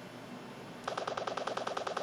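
KTF-E2500 mobile phone sound effect from its speaker: a rapid pulsing electronic tone of about ten pulses a second, starting about a second in.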